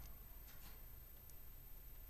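Near quiet room tone with a couple of faint, short finch chirps, one about two-thirds of a second in and a fainter one later.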